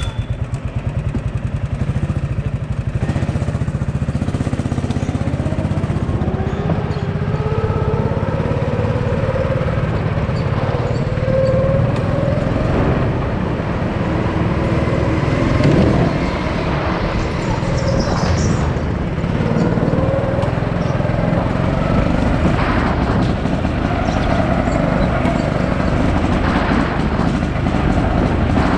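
Rental go-kart's motor running under throttle, heard from the driver's seat, its pitch rising and falling as the kart speeds up on the straights and slows for the corners.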